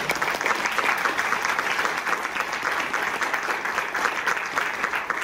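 A group of people applauding, many hands clapping steadily.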